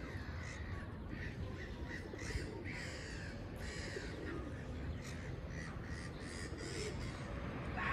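Birds calling around the pond: a run of short, harsh, caw-like calls repeated throughout, over a steady low background rumble.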